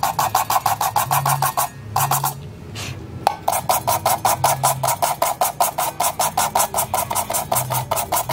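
Sandpaper rubbed rapidly back and forth over the metal bottom of a stainless steel pot, a rasping scratch of about seven strokes a second. It stops for about two seconds early on, then carries on steadily to the end.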